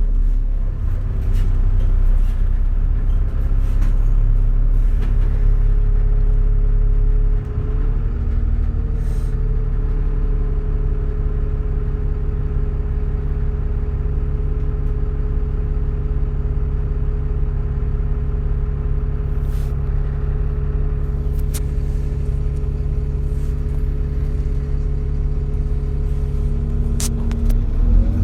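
Alexander Dennis Enviro400 Trident bus running steadily, heard from on board: a low engine drone with a vacuum-cleaner-like whine held at a steady pitch, the 'hoover mode' sound. About seven seconds in the level dips briefly and the whine settles at a slightly different pitch.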